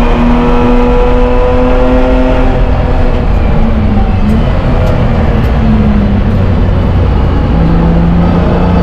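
Onboard sound of a BMW E30 race car's M20 inline-six engine at high revs on a straight. It drops in pitch as the car brakes and downshifts for a slow corner, then starts to pull again at lower revs near the end.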